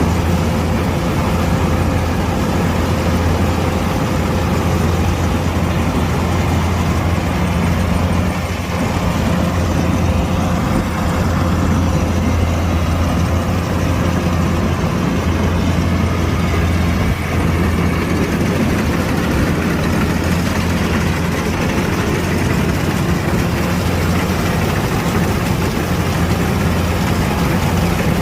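Kubota DC-105X combine harvester's diesel engine running steadily: a constant low drone with a faint, even higher hum over it.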